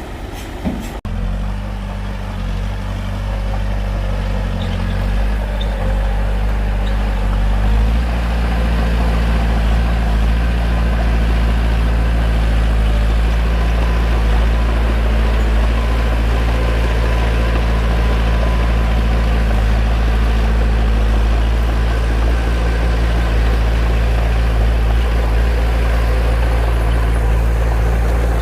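Bulldozer's heavy diesel engine running steadily with a low drone, growing louder over the first several seconds and then holding even.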